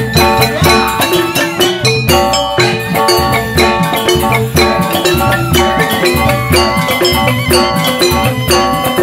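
Joged bumbung gamelan playing: bamboo xylophones (grantang) ringing in fast, repeating interlocking figures over steady kendang hand-drum strokes.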